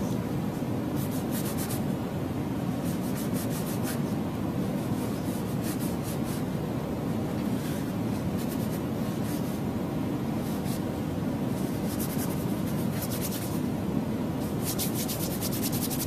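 Oil-paint brush scrubbing and dragging across a stretched canvas, with several short runs of scratchy strokes, over a steady low rumble of background noise.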